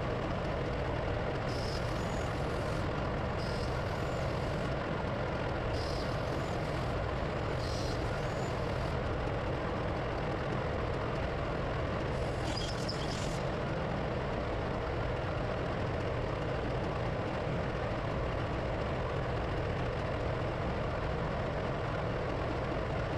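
Steady, loud drone of running diesel generator machinery, with a few brief faint hisses in the first half.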